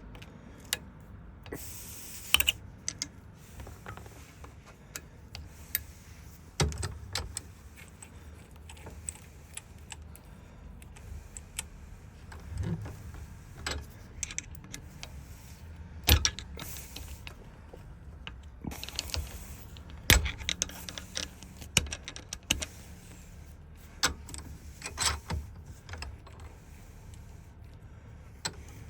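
Irregular small metallic clicks, clinks and taps from keys, lock cylinder parts and hand tools being handled during rekeying of a Ford lock, with two sharper knocks a little past the middle.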